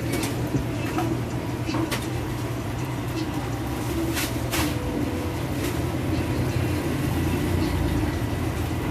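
Hotteok pancakes frying in oil on a flat metal griddle, a steady hiss over a constant low rumble, with a few sharp clicks in the first half.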